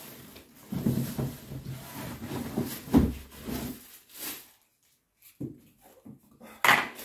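Unpacking noise: plastic-wrapped pressure-washer parts being pulled out of a cardboard box and handled, rubbing and rustling against the cardboard, with a single knock about three seconds in and a short crinkle of a plastic bag near the end.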